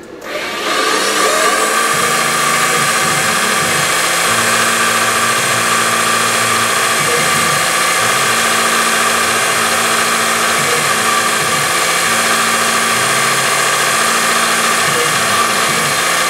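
Syil X3 CNC mill's spindle starting up about half a second in and then running at a steady high pitch, with the axis motors humming underneath in changing tones as the head moves.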